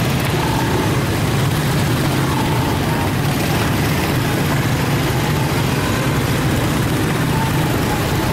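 Heavy vehicle engine running with a steady low hum, over a continuous haze of road noise.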